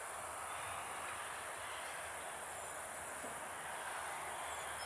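Crickets chirring in a steady high-pitched drone over a soft, even background noise.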